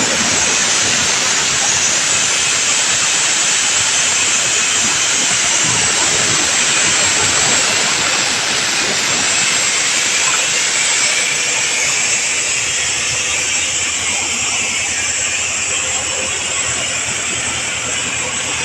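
A loud, steady hiss of compressed air from a tractor-driven air compressor, over a Mahindra 585 DI tractor's diesel engine running. The hiss eases about two-thirds of the way in, and the engine's lower running note comes through more.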